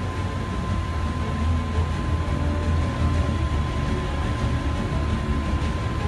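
Diesel engine of heavy Komatsu earthmoving machinery running with a steady deep rumble, a thin steady tone sounding above it.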